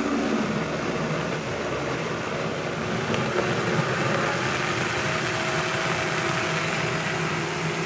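Countertop blender motor running steadily, puréeing a thick soup.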